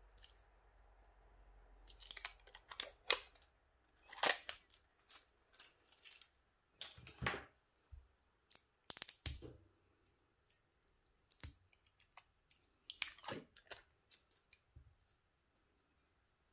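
A thin tool and fingertips scraping, prying and clicking against the taped pack of lithium-ion cells from a cordless tool battery, in irregular scratchy bursts starting about two seconds in.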